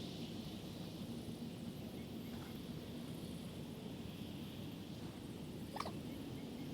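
Outdoor rural ambience: a steady wash of wind and background noise with a faint, steady low hum, and one brief high chirp about six seconds in.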